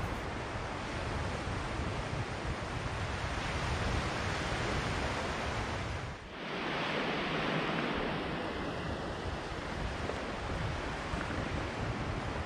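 Steady wash of ocean surf on a sandy beach, with wind rumbling on the microphone. About six seconds in the sound dips briefly, and after that the deep wind rumble is lighter and the surf wash comes through more clearly.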